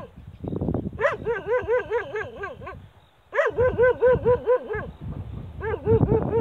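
A large dog barking in quick runs of about seven or eight barks at roughly four a second, three runs with short pauses between them.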